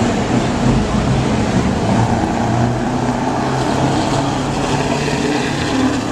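Scania V8 truck engine with open exhaust pipes running steadily as the truck drives past.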